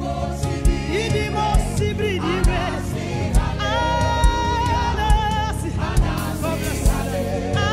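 Live gospel band with a choir singing held notes over a drum kit keeping a steady beat, with keyboard and bass.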